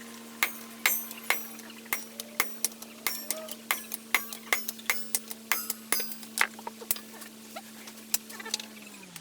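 An electric power-tool motor hums steadily while many sharp, irregular metallic clinks sound over it. Near the end the motor is switched off and winds down, its pitch falling.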